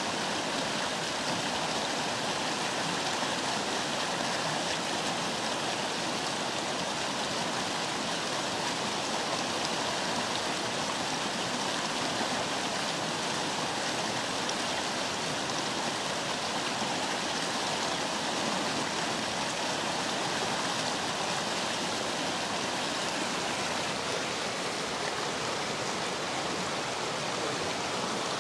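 Fast-flowing river rapids rushing steadily over rocks.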